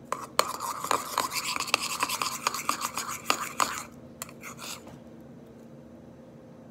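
Metal spoon stirring a thick soap slime mixture in a bowl, scraping and clicking against the sides for about four seconds, then a few light taps before it stops.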